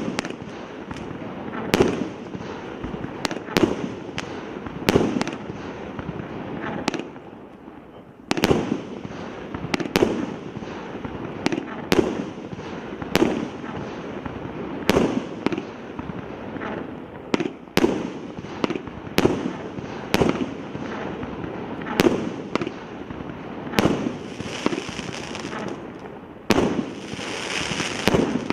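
Multi-shot consumer fireworks cake of 0.8 to 1.2 inch tubes firing shot after shot, a sharp bang about once a second, with a brief lull partway through. Near the end, crackling effects fizz between the bangs.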